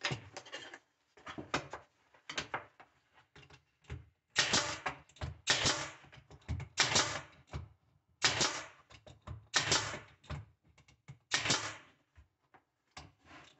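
Brad nailer firing 3/4-inch brad nails into wood. It gives a string of sharp shots, each with a short rush, about one every second or so, the loudest six coming in the middle and later part.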